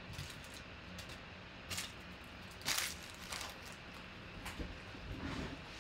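Faint handling noises: a few brief rustles and scrapes, the loudest about three seconds in, over a low steady hum.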